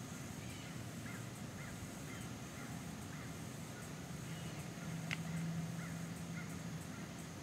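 Crows cawing faintly, a string of short calls. About five seconds in come a sharp click and a low hum lasting a couple of seconds.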